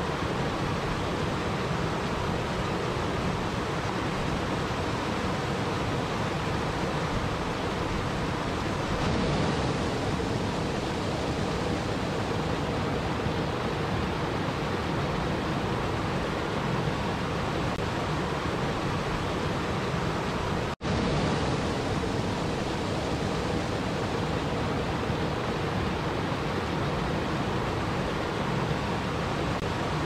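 Small waterfall cascading over boulders into a river, a steady rush of falling and churning water. The sound cuts out for a split second about two-thirds of the way through, then carries on.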